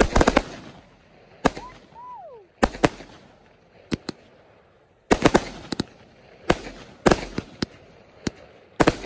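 Fireworks going off: a dozen or so sharp bangs at uneven intervals, some in quick clusters of three or four. A brief whistling tone rises and then falls about two seconds in.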